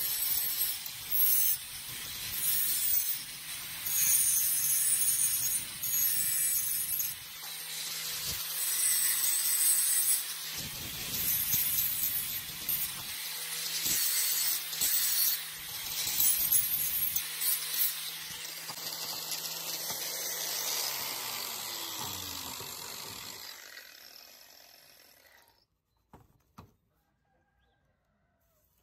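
Angle grinder with a thin cut-off disc cutting notches into a rusty rectangular steel tube: a series of short harsh cuts with the motor running between them. Near the end the grinder is switched off and the disc winds down with a falling pitch until it stops, followed by a couple of faint taps.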